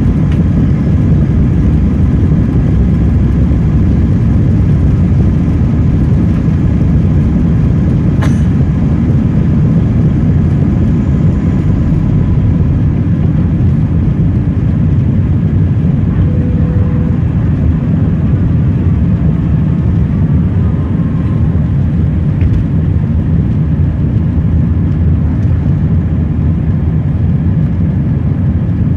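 Airbus A320's twin turbofan engines at takeoff thrust, heard from inside the cabin: loud, steady engine noise with a deep rumble through the takeoff roll and on into the climb after liftoff. A single sharp knock comes about eight seconds in.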